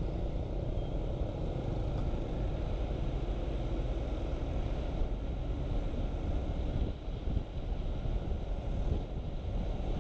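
Motorcycle riding along a city road: a low, uneven rumble of engine and road noise that dips briefly about seven seconds in.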